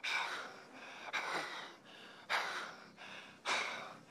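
A man breathing hard in gasps, four breaths about a second apart, each starting sharply and fading.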